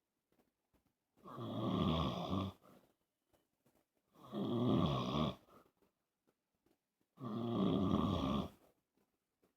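A sleeping man snoring: three long snores about three seconds apart, each lasting about a second and a half, with quiet breaths between them. The snoring comes from a man with sleep apnea.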